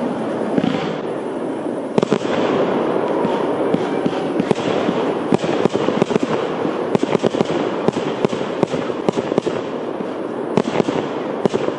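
Fireworks display: a continuous barrage of bangs and crackling from bursting shells, with many sharp reports packed close together through the middle.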